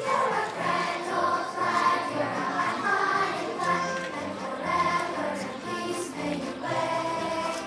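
A group of children singing a song together to musical accompaniment.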